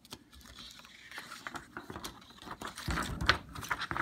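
Paper rustling and crackling as a printed user's manual is handled and opened out, a dense run of small irregular crackles that grows louder about three seconds in.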